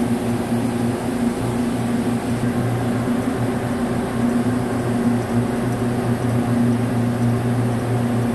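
Vertical CNC lathe running with a heavy steel ring spinning on its table: a steady machine hum with two constant low tones.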